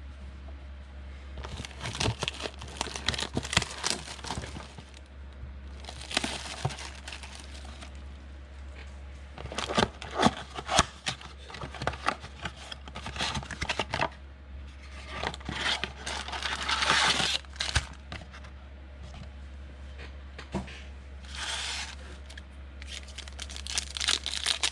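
A foil wrapper on a pack of 2019 Panini Prestige football trading cards being torn open and crinkled by hand, in irregular bursts of tearing and crackling with sharp little clicks. A low steady hum runs underneath.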